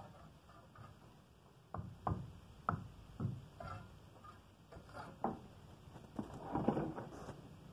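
Steel mason's trowel scraping and tapping on brick and mortar while building a brick vault. It makes a series of short, sharp knocks and scrapes, busiest near the end.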